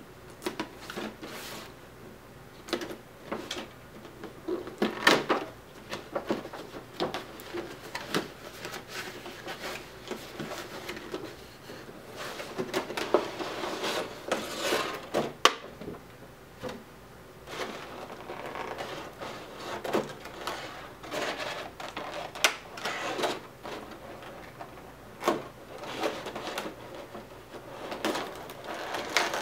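Packaging handled by hand: a knife slitting the tape on a cardboard figure box, the box flaps and cardboard scraping and tapping, then a clear plastic blister tray being slid out and handled, with irregular clicks, crinkles and rustles.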